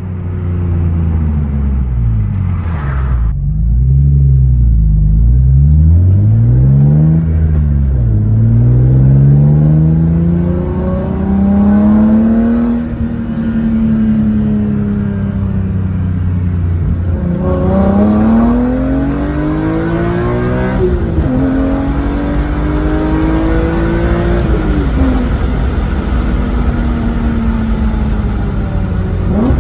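BMW E46 M3's S54 straight-six running through a catless exhaust with a Status Gruppe V1 muffler. It revs quickly up and down a few times, then accelerates in a long pull with deep bass. The pitch falls back and climbs again at three upshifts in the second half.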